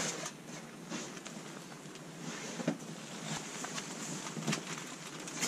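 Scattered soft scuffs and knocks over a steady hiss: a climber's shoes and body moving on crash pads and rock while settling into a sit start on a boulder.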